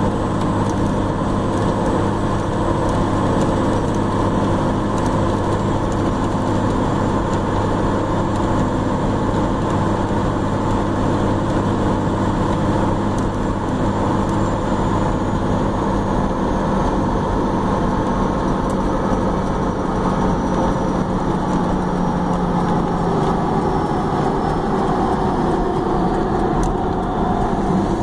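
Dodge Ram 2500's Cummins straight-six turbo diesel running steadily at highway cruise, with constant road noise. A faint high whine drifts slowly down in pitch through the second half.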